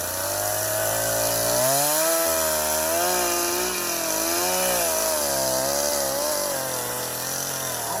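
Echo CS-501P two-stroke chainsaw cutting through a log under load, its engine pitch wavering up and down as the chain bites.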